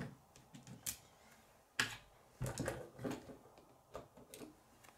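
Plastic K'nex pieces clicking and clattering as they are handled against a wooden tabletop: a string of separate sharp clicks, the loudest about two seconds in.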